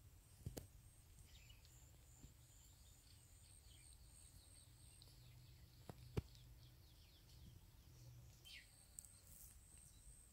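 Faint outdoor ambience near silence: a thin, high steady tone, a few faint bird chirps, and two sharp clicks, a small one near the start and a louder one about six seconds in.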